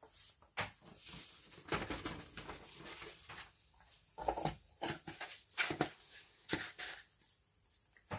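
Scattered light knocks, clicks and rustling as small craft supplies, a container of sand and a sheet of paper, are handled and put away on a desk.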